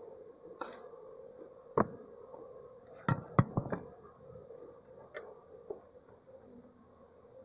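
Honeybee swarm buzzing steadily at its nest in a termite mound, with several sharp knocks, a cluster of them about three seconds in and the loudest near two and three and a half seconds.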